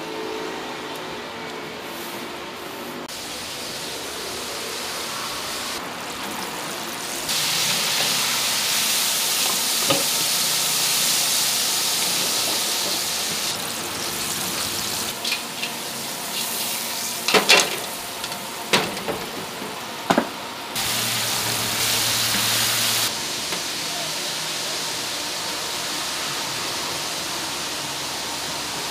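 Deep-frying: hot oil sizzling steadily as coated crabs fry in a wok. The hiss jumps in level several times, and a few sharp clicks and knocks come about halfway through.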